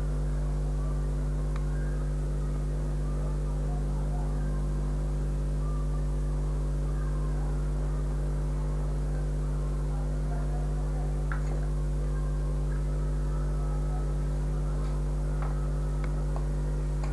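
Steady electrical mains hum, a low buzz at 50 Hz and its odd multiples, with a few faint small clicks over it.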